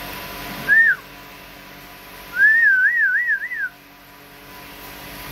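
A person whistling: one short whistled note about a second in, then a longer warbling whistle that wavers up and down about four times.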